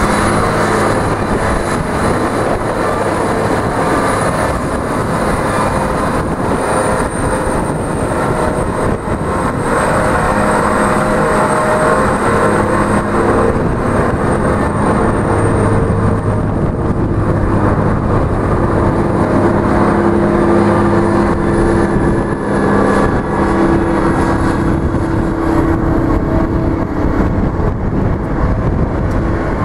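Sandvik TH430 underground haul truck's diesel engine running as the truck drives and turns, a loud steady engine drone whose pitch shifts as it goes, with a thin high whine above it.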